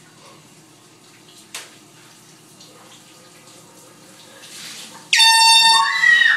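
Shower water running steadily, then about five seconds in a handheld canned air horn lets off a single very loud blast lasting over a second.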